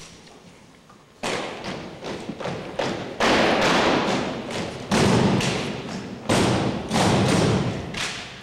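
Drill team's rifles and boots striking in unison: a series of sharp thumps and slaps, starting about a second in, with the louder ones roughly every second or two, each echoing through the gymnasium.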